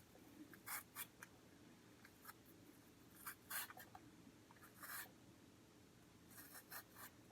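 Raw potato being peeled, with a blade scraping the skin off in short, faint strokes at irregular intervals.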